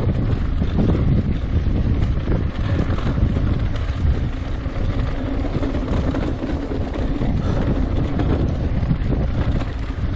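Wind buffeting the microphone of a camera carried on a moving mountain bike, with a steady rumble from riding over a dirt trail.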